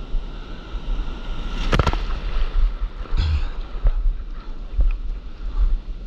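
Breaking whitewater washing around a stand-up paddleboard, with wind rumbling on the microphone and a few sharp water splashes, the loudest about two seconds in.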